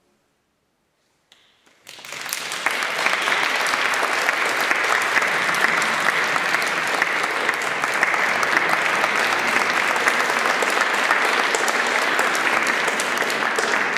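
Near silence, then an audience breaks into applause about two seconds in and keeps clapping steadily.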